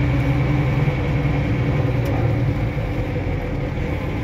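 Unimog truck running steadily on the move, heard from inside the cab: a continuous low engine and drivetrain hum with a faint steady high whine over it.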